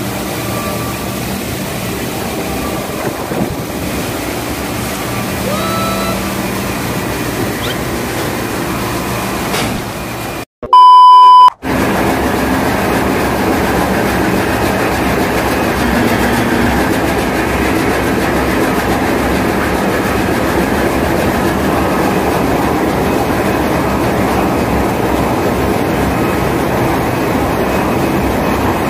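Steady drone of a ship's engine-room machinery. About ten seconds in it cuts out briefly and a loud, one-second electronic beep sounds. The machinery drone comes back louder after it.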